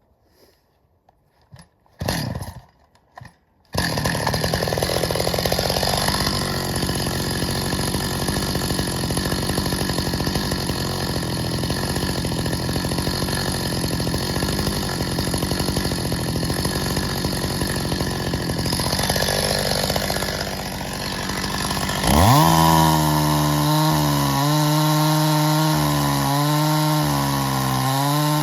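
A few short knocks, then about four seconds in a Stihl MS 270 two-stroke chainsaw comes in loud and runs steadily with a rough, noisy sound, as when it is cutting through birch logs. Near the end the pitch climbs into a clear high engine whine that dips and rises with the throttle.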